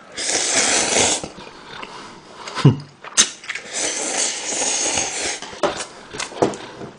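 A person slurping instant ramen noodles from broth with chopsticks: a long slurp of about a second, then a longer one of about two seconds, with short wet chewing clicks between and after.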